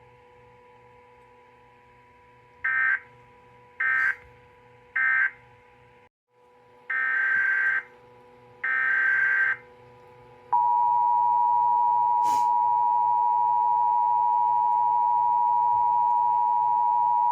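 Emergency Alert System tones: three short warbling data bursts, then two longer ones, followed from about ten seconds in by the loud, steady two-tone attention signal, which holds to the end.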